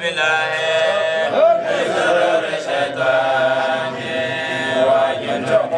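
A man's voice chanting a religious chant in long, held notes that waver slightly in pitch, with short breaks between phrases.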